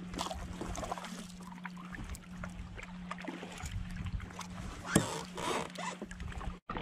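Kayak paddle at work: the blade dipping and dripping in the water with small knocks against the plastic kayak, a sharp knock about five seconds in followed by a short splashy swish. A faint low steady hum lies under it.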